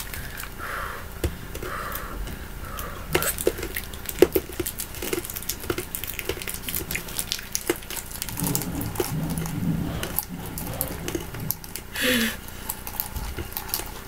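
Scattered small wet clicks and smacks of two people sucking sour hard candies, with a few brief hums and murmurs and a louder short sound near the end.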